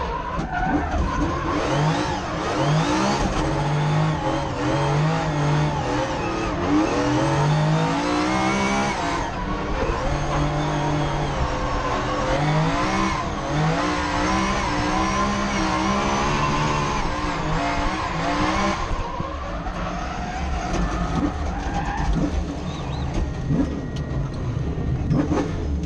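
Toyota 1GZ-FE-based 5-litre naturally aspirated V12 of a Nissan S14 drift car, heard from inside the cabin, revving hard up and down through a drift run with tyre squeal. The revs drop off sharply about ten and nineteen seconds in, and over the last few seconds the engine runs lighter and quieter.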